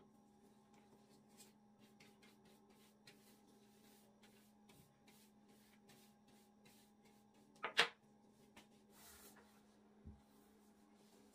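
Quiet kitchen with a faint steady hum and light scuffing while flour is brushed over the wooden pastry board. About eight seconds in there is a sharp double wooden knock on the board, and a softer knock near the end as the rolling pin with the pastry sheets is set back down.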